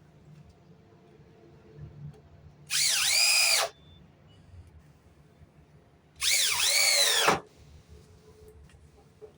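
Power drill run in two short bursts, about a second each and a few seconds apart, its whine rising and then falling each time.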